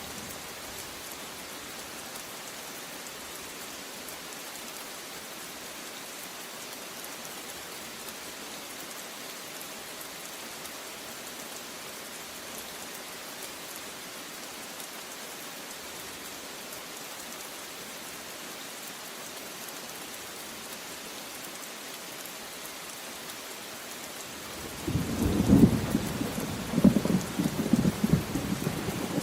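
Steady rain falling, an even hiss. Near the end, a loud thunderclap breaks in and rumbles on.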